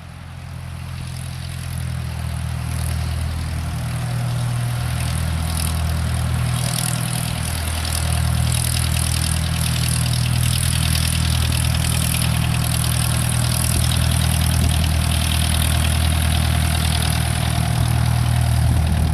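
Light aircraft's piston engine and propeller running steadily at low power, as when taxiing, getting louder over the first several seconds and then holding.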